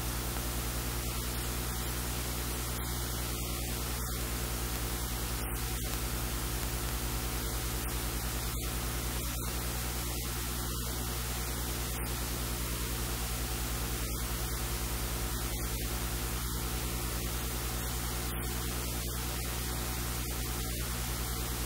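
Steady loud hiss over a low electrical hum at about 50 Hz with its overtones, unchanging throughout: electrical noise on the audio track, with no speech coming through.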